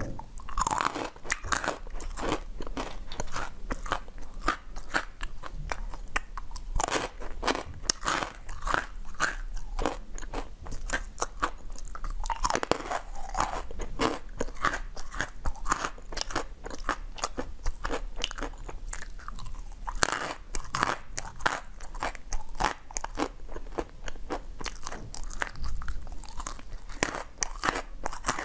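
Crunching and chewing as small blue-and-white candy pieces are bitten one after another: a dense, irregular run of sharp crackles and snaps.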